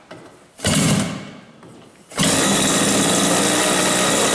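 TBM-RCS SV 100cc twin-cylinder gas engine being hand-started by flipping its wooden propeller: it fires in a short burst that dies away about half a second in, then catches about two seconds in and runs steadily.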